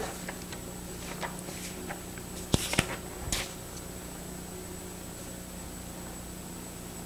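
Lecture-room background with a steady electrical hum, broken by a few small clicks and knocks, the loudest cluster near the middle.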